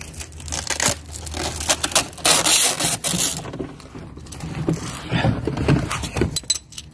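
Irregular scraping and rustling handling noises with a few light clicks, as a ratchet with a socket is handled and picked up off a concrete floor. There is a louder stretch of scraping about two seconds in.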